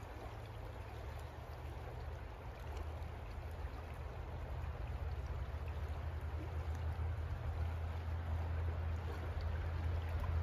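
River water flowing steadily, with a strong low rumble underneath.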